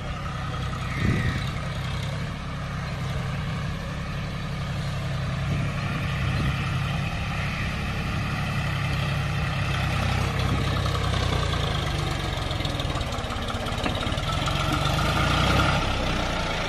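John Deere 5039 tractor's three-cylinder diesel engine running steadily at low revs as the tractor drives, with a brief bump about a second in and the engine growing a little louder as it comes closer.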